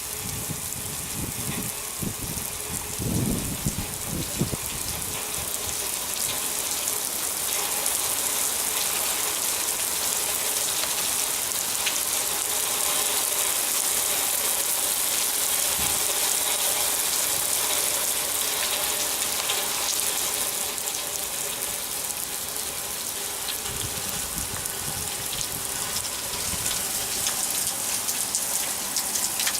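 Steady rain falling, a dense even hiss that grows a little louder over the first several seconds. Brief low rumbles come through about three seconds in and again near the end.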